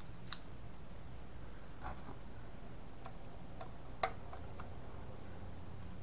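Scattered light clicks and metal taps from a steel hard-drive cage with the drive mounted in it, handled and tilted on a wooden table; about six short ticks, the sharpest about four seconds in.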